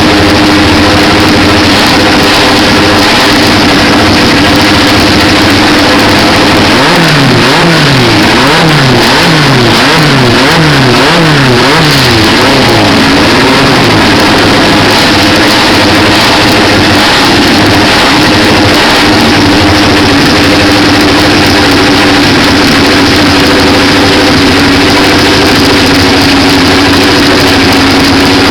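Renault 5 Maxi Turbo's turbocharged four-cylinder engine idling loudly. A few seconds in, it is blipped through a quick run of about eight sharp revs, each rising and dropping back, then it settles back to a steady idle.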